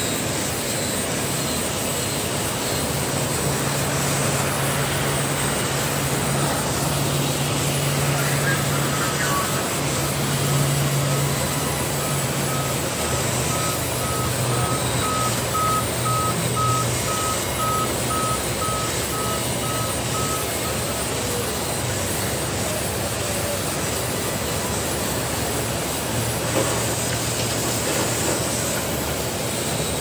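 Large band resaws in a sawmill running steadily, with the hiss and whine of timber being ripped into boards. A repeating electronic beep sounds through the middle part.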